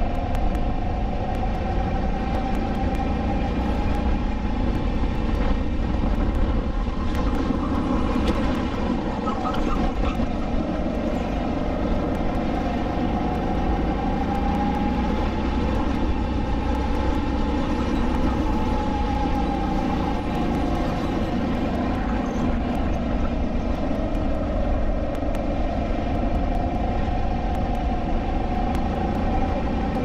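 SODI LR5 rental kart's 160 cc four-stroke engine running under racing load, heard close up on board, its pitch rising and falling gently as the kart slows for corners and accelerates out of them.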